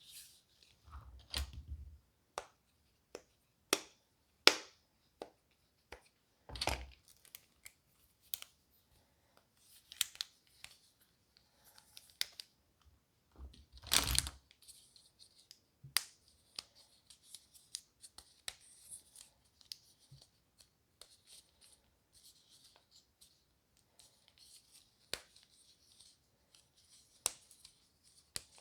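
Silicone pop-it fidget toy bubbles being pressed, giving irregular sharp pops, with a few heavier knocks in the first half. Softer rubbing and light clicks follow in the second half.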